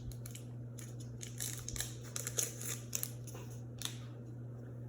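Foil booster-pack wrapper crinkling and crackling in the hands with small tearing sounds as a Pokémon card pack is opened and the cards are taken out, in irregular bursts over a faint steady hum.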